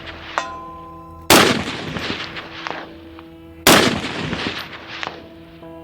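Two rifle shots about two and a half seconds apart, each followed by a long fading echo, with faint steady ringing tones in between.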